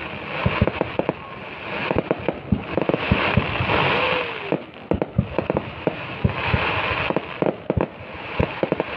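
Aerial fireworks going off in quick succession: many sharp bangs of shells launching and bursting, with stretches of crackling between them.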